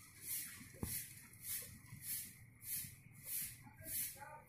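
Pen writing on paper: soft scratching strokes, a bit under two a second, with one light click about a second in.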